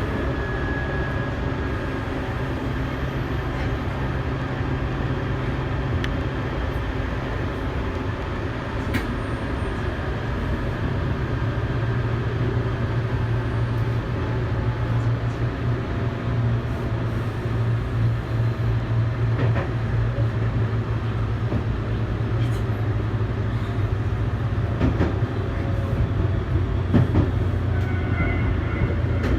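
A Tobu 8000 series electric train running, heard from inside the car: a steady low motor and rolling hum with wheel noise, firming up a little partway through. A few sharp rail-joint clicks come in the second half.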